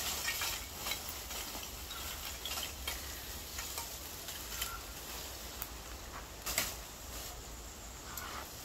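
Lumps of charcoal being poured from a sack into a metal coal pot, clattering in a run of small clicks and knocks, with one louder knock past the middle.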